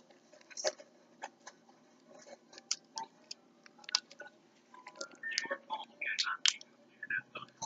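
Homemade glue slime being squished and stretched by hand: scattered wet clicks and pops, thickening into a run of squelches about five seconds in.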